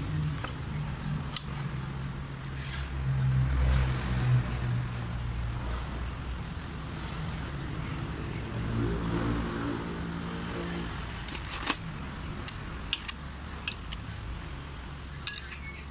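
A low engine hum runs in the background. From about two-thirds of the way in come a series of light metallic clicks and taps as the parts of a diesel injection pump are handled on the bench.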